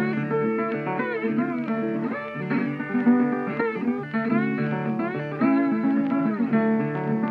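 Guitar music whose notes slide and bend up and down in pitch.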